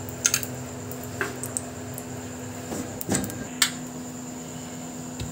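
A few soft taps and knocks of paratha dough being pressed and spread out flat by hand, over a steady low electrical hum.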